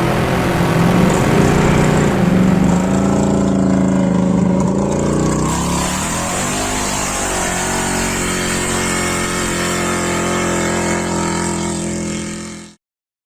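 Dune buggy engine running, its pitch rising and falling over the first few seconds, then holding steady before cutting off suddenly near the end.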